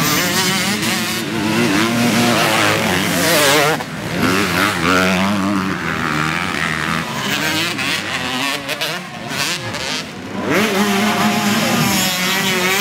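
Several 250 cc dirt-bike engines racing on a dirt track, their pitch rising and falling over and over as the riders work the throttle through a corner.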